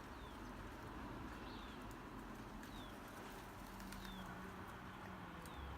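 Small birds calling faintly in the background: short, high falling chirps repeated about once a second, over a steady outdoor hiss.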